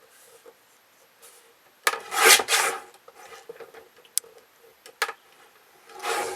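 Paper cutter drawn through a sheet of paper: a rasping swipe about two seconds in, two sharp clicks, then another swipe starting near the end. The cutter is dull, in the user's words just not cutting it anymore.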